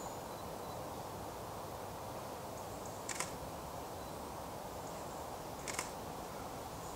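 DSLR camera shutter firing twice, a short sharp click about three seconds in and another near six seconds, over steady background hiss.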